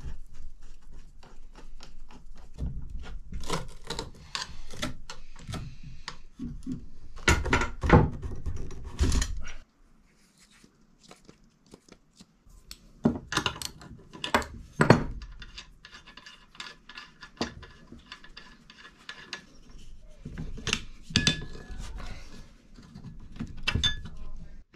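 Bronze and brass parts of a Baby Blake marine toilet clinking and knocking as they are handled and taken apart, with tools striking the metal. The knocks come in irregular clusters with a short pause in the middle.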